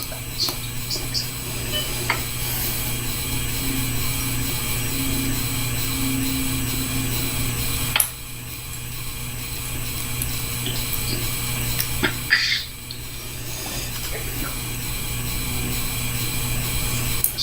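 Person eating ramen: a few sharp clicks of chopsticks against the bowl and short slurping, eating noises, over a steady background hum.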